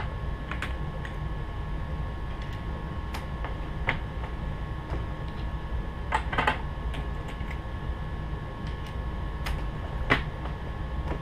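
Brass .44 Magnum cases being full-length resized one at a time in a Hornady single-stage press with a carbide sizing die: scattered clicks and clinks of cases against the shell holder and a plastic loading block, and of the press's ram and lever. The loudest clatter comes about six and a half seconds in and again about ten seconds in, over a steady low hum.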